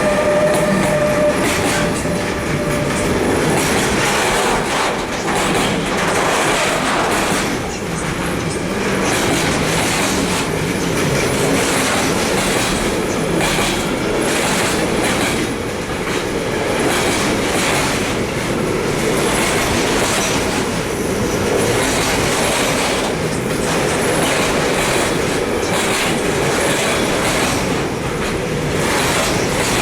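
A long train rolling through a station, with a continuous rumble of wheels on rails and repeated clacks as the wagons cross rail joints. A thin steady squeal in the first few seconds fades out.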